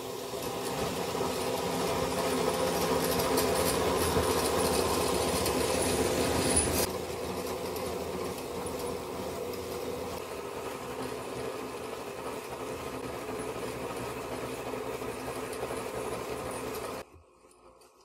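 Electric yarn cone winder running steadily as it rewinds yarn onto a cone. The yarn is drawn over a paraffin block to wax it. The motor gets a little quieter a few seconds in and stops abruptly near the end.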